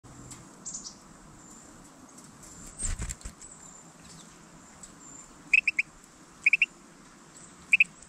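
Carolina wren at a platform seed feeder: a soft thump as it lands near the start, then three quick groups of three sharp ticks as it works at the seed or calls, with a faint high bird chirp early on.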